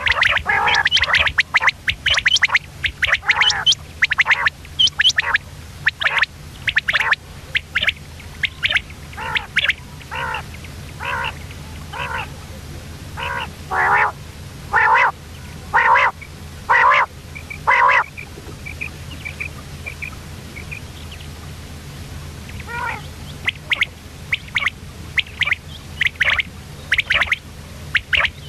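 Common quail, given as the female's call, calling in a long series of short, harsh notes about one or two a second, with a few seconds of only faint chirps about two-thirds of the way through. A steady low hum runs underneath.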